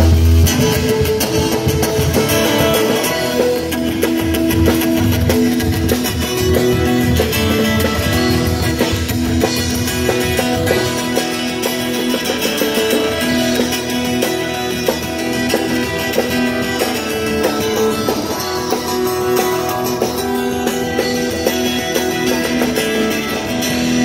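Live band guitars playing a tune, with sustained notes over strummed chords.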